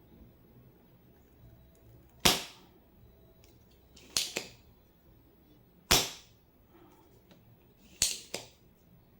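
Spring-loaded desoldering pump (solder sucker) firing, its plunger snapping back with a sharp click four times about two seconds apart, sometimes with a quick second click, as solder is sucked off the keyboard switch pins.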